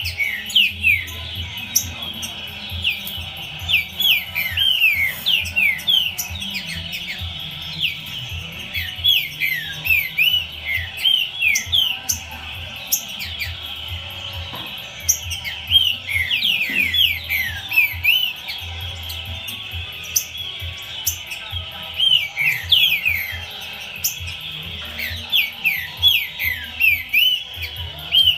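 A green-winged saltator (trinca-ferro) singing: phrase after phrase of quick, sliding whistled notes, each phrase a second or two long with short pauses between.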